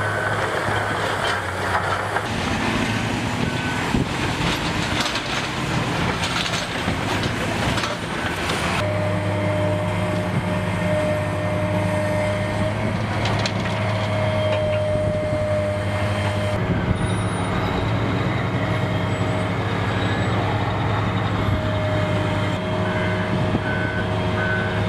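Diesel engines of heavy earthmoving equipment running under load, a steady low drone with a higher whine, changing abruptly a few times. Near the end a reversing alarm beeps at a steady rate.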